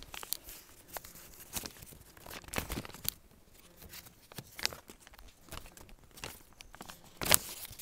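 Irregular crackling and rustling with scattered sharp clicks, the loudest one near the end.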